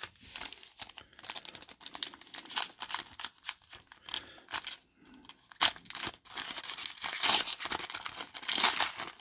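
Shiny foil wrapper of a 2020 Panini Chronicles baseball card pack being torn open and crumpled by hand, a run of crackling tears and crinkles. There is a short lull about halfway, then louder bursts in the last few seconds.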